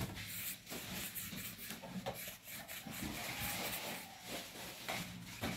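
Pastry brush stroking egg-white glaze over pastry dough in a metal tray: faint, soft rubbing with a few light taps, over a low steady hum.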